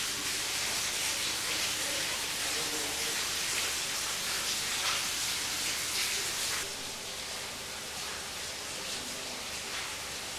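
Steady hiss of broad noise, like rushing air or water, dropping noticeably in level about six and a half seconds in.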